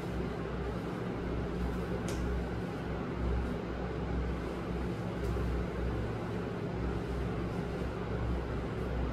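Steady low hum and hiss of a machine running in a small room, such as a fan or air conditioner, with two faint clicks, about two and five seconds in.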